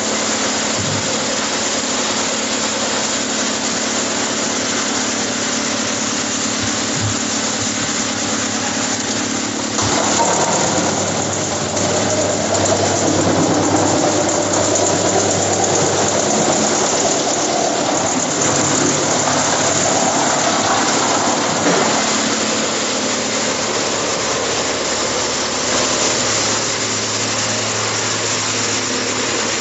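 Rotex wood chipper running steadily with a constant motor hum. From about ten seconds in until about twenty-two seconds in it grows louder and rougher, then settles back to steady running.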